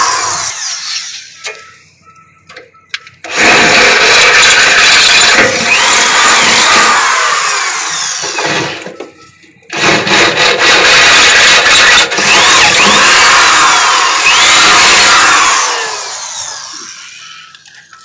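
Hand-held variable-speed electric drill boring through the steel floor of a truck battery box. It runs in two long stretches of about five seconds each with a short stop between them, and fades out near the end.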